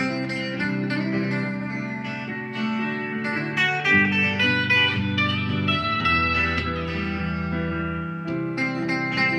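Guitar music: plucked guitar notes ringing over held low notes.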